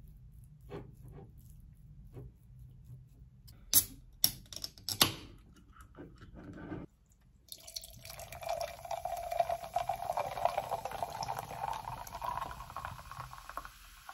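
A can of carbonated soda poured over ice into a glass: a fizzing, gurgling pour that starts about halfway through, its tone rising slowly as the glass fills. Before it, a fork clicks against a ceramic bowl, and the can is cracked open with two sharp snaps about four and five seconds in.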